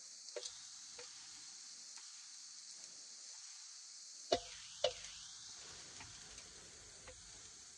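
Kitchen knife slicing mushrooms on a wooden chopping board: scattered short taps, the two loudest a half second apart about halfway through, over a faint steady hiss.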